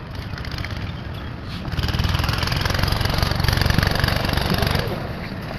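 A small engine running, growing louder about two seconds in and easing off near the end.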